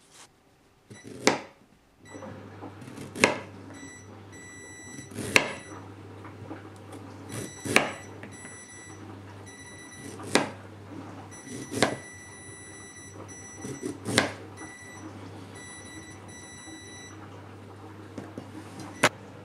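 Kitchen knife slicing through fresh ginger and knocking on a plastic cutting board, about eight separate cuts a couple of seconds apart, over a steady low hum.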